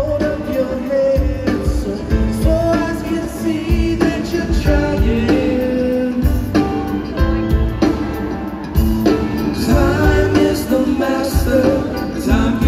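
Live band music over a concert sound system: acoustic guitar and piano with a voice singing, over a steady low beat.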